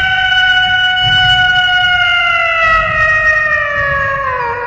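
A domestic cat giving one long, loud meow that slowly falls in pitch and drops lower near the end.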